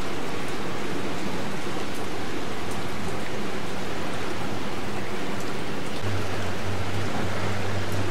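Steady hiss of rain falling on the boat and the river, with a low steady hum coming in about six seconds in.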